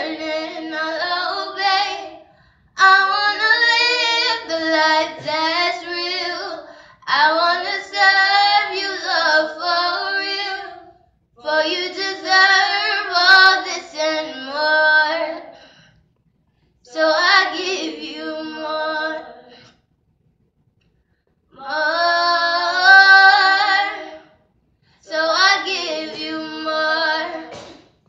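Young female singing, unaccompanied, a slow song sung in phrases of a few seconds with short silent breaths between them.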